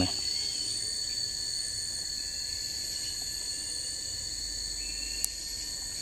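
Steady high-pitched drone of a forest insect chorus (crickets or cicadas), with a single sharp click about five seconds in.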